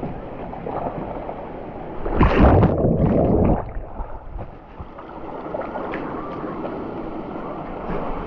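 Running and splashing water from a waterpark children's play pool, its fountains and slides switched on, with a louder rush of water about two seconds in that lasts about a second and a half.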